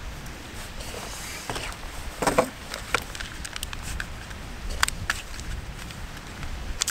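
Handling noise: a knock about two seconds in as the plastic drone is set down on the wooden table, then scattered light clicks and rustling as a small paper packet is handled, over a low wind rumble on the microphone.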